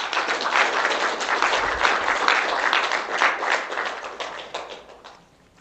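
An audience applauding, a dense patter of many hands clapping that dies away about five seconds in.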